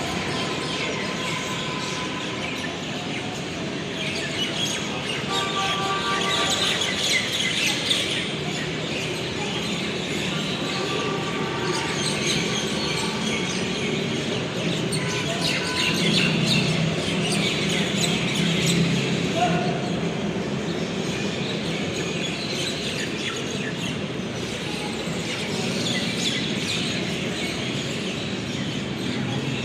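Birds chirping and calling in quick, overlapping short notes, over a steady low background rumble.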